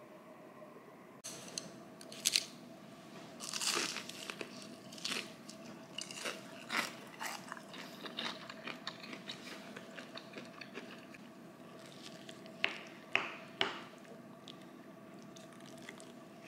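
Biting into and chewing crispy deep-fried chicken: sharp crunches, loudest a couple of seconds in and again near the end, with smaller crackling chews between, over a faint steady hum.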